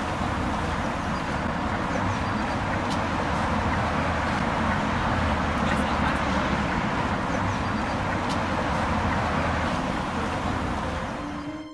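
Street ambience: steady traffic noise with low rumble and faint indistinct voices.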